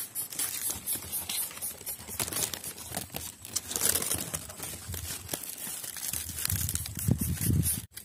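Dry grass of a greater coucal's nest rustling and crackling as it is parted by hand, with louder rustling near the end.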